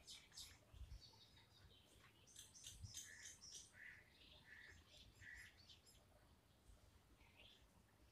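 Near silence with faint, scattered bird chirps: short high calls, including a run of four evenly spaced chirps about halfway through.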